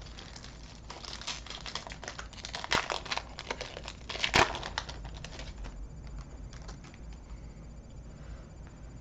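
Foil Pokémon Sun & Moon Team Up booster pack being torn open and its wrapper crinkled. The crackling is busiest in the first half, with two louder rips about three and four and a half seconds in, then dies down.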